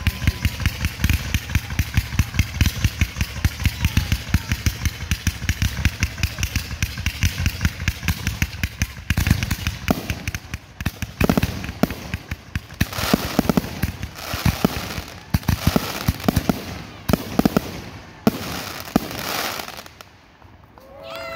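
Fireworks barrage: a rapid string of sharp reports for the first several seconds, then heavier, separate booms with crackle. It dies away just before the end.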